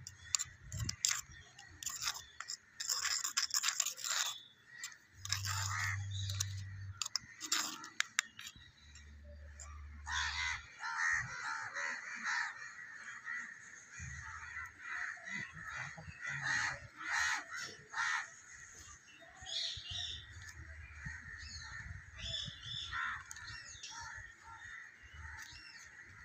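Small clay pots and a steel bowl clicking and scraping as they are handled, with crows cawing over and over from about ten seconds in.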